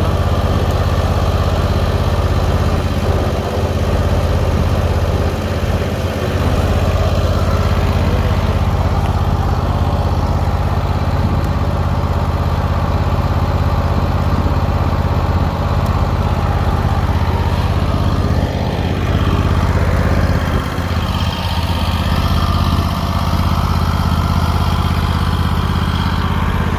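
Engine of a 2017 Hustler 52-inch zero-turn mower running steadily.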